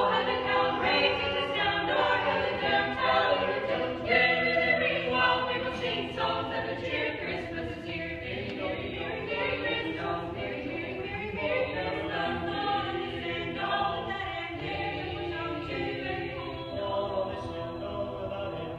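A family vocal group of men, women and children singing a Christmas carol together in several voice parts.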